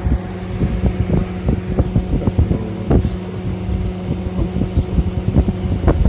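Air-conditioner evaporator blower fan motor running with a steady hum, under irregular low knocks and rubs a few times a second, the loudest one near the end.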